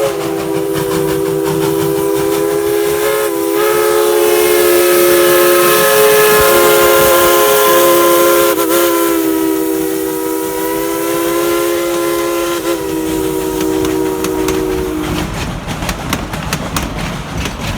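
Tweetsie Railroad #190's steam whistle, a narrow-gauge steam locomotive, blowing one long blast of a chord of several notes, held for about fifteen seconds with slight dips and then cut off. A steam hiss with rapid clicking follows near the end.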